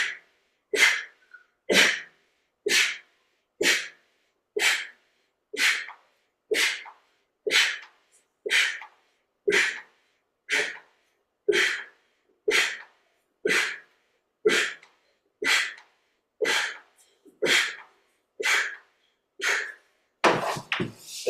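A person breathing out hard in a steady rhythm, about one sharp exhale a second, from the exertion of a timed exercise. Near the end the rhythm breaks into a quicker, denser run of sounds.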